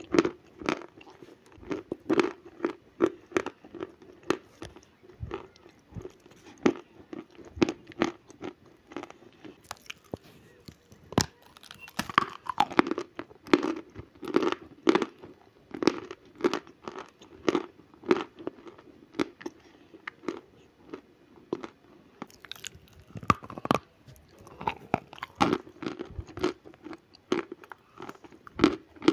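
Natural chalk being bitten and chewed: a steady run of sharp crunches between the teeth, about one or two a second.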